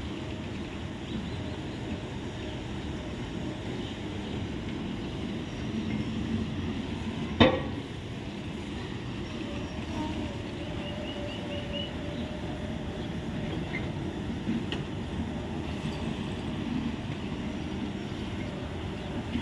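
Indian Railways express coaches rolling slowly through an automatic coach-washing plant: a steady rumble of wheels on rail, with one sharp clank about seven and a half seconds in.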